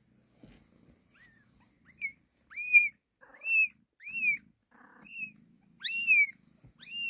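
A young tabby kitten mewing over and over in short, high-pitched calls, each rising then falling, starting about a second in, as it is handled and lifted from the nest box.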